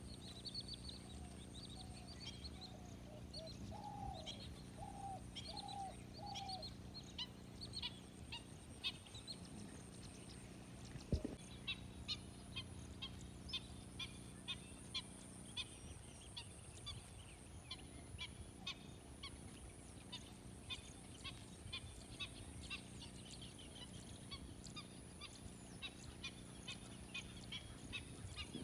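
Several birds chirping and singing in many short, high calls, with a run of about five lower, fowl-like calls a few seconds in, over a steady high-pitched drone. A single sharp click about eleven seconds in.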